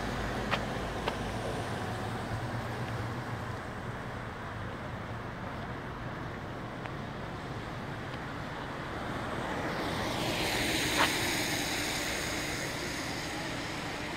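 Street traffic noise: a steady low background, with a car passing on the road that swells up about two-thirds of the way through and fades away. Two faint sharp clicks come early on, and another at the height of the pass.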